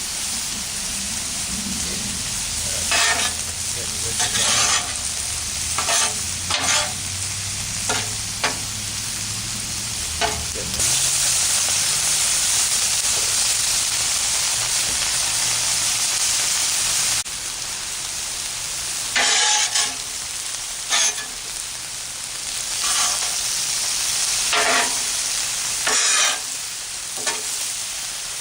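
Vegetables sizzling steadily on the flat steel top of a Blackstone propane griddle, with a spatula scraping and tapping the griddle every second or two as they are stir-fried. The sizzle grows louder for several seconds in the middle.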